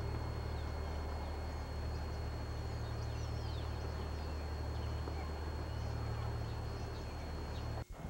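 Outdoor ambience: a steady low rumble with a thin, steady high whine over it and faint bird chirps. It cuts off abruptly near the end.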